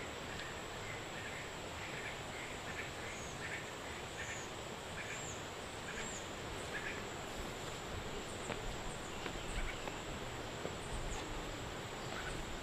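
A bird calling in a run of short, repeated notes for the first several seconds over a steady background hiss, with a few faint clicks later on.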